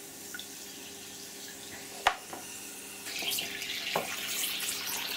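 Compressed air from a paintball HPA tank leaking out through a submerged 3D-printed plastic part, bubbling and fizzing in the water; the printed plastic itself lets the air through. A sharp click about two seconds in, and the fizzing grows louder about three seconds in.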